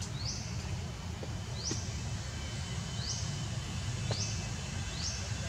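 A wild animal calling with a short, high, rising chirp, repeated about five times at intervals of one to one and a half seconds, over a steady low rumble.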